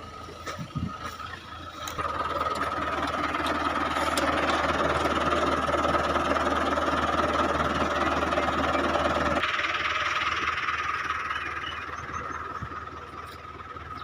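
Tractor diesel engine revving up about two seconds in and running hard and steady under load, then dropping back about nine seconds in and easing off.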